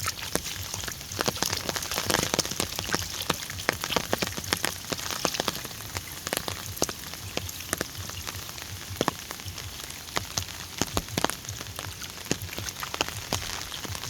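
Heavy rain falling, a steady hiss with many large drops striking close by as irregular sharp taps.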